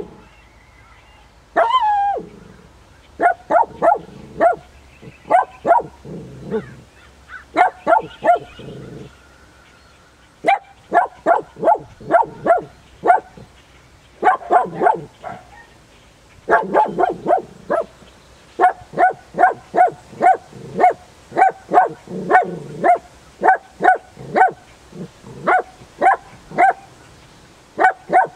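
Miniature dachshund barking in runs of short, sharp barks, about two a second in the longer runs, with brief pauses between them. It is territorial barking at a turtle in its yard.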